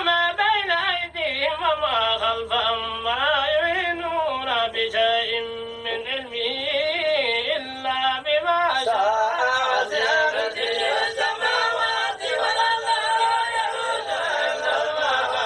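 A man's voice chanting in a drawn-out, melodic style over a steady held tone, in the manner of Quranic recitation. The sound grows fuller about nine seconds in.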